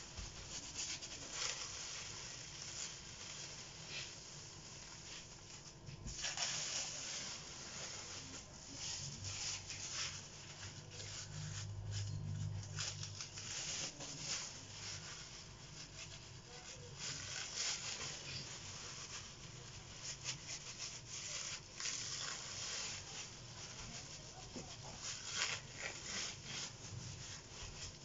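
Plastic bag crinkling and rustling in irregular bursts as gloved hands press and rub it over the paint.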